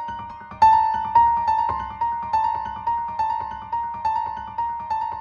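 Background piano music: a melody of repeated notes struck about twice a second, each note fading before the next.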